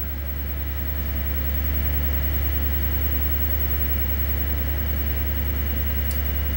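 Steady low electrical hum with a faint hiss, from running bench electronics, and a single light click about six seconds in.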